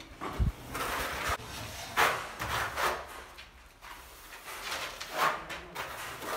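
Steel notched trowel scraping tile adhesive across a rough cement-rendered wall, in several separate strokes. There is a dull knock about half a second in.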